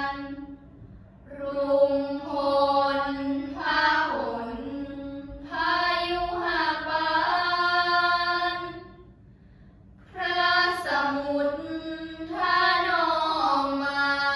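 A group of girls chanting Thai Buddhist prayers in unison, in long melodic held phrases. The chanting breaks off briefly about a second in and again around nine seconds in.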